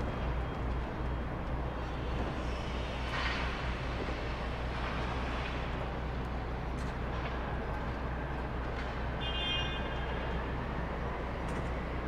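Steady low rumble of city road traffic, heard from beneath a concrete road bridge. A short high-pitched tone rises above it about three-quarters of the way through.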